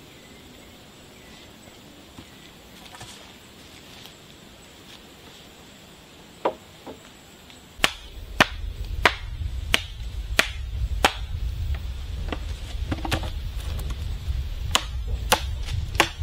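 Sharp chopping strikes of a blade into wood, one about every two-thirds of a second from about halfway through, pausing briefly before a last few. A low steady rumble comes in with them. Before that there are only two light knocks over a faint steady insect buzz.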